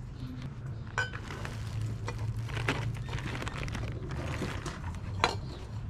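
Small household items and plastic bags being handled and moved, with a few short clinks and rattles, the loudest near the end, over a steady low hum.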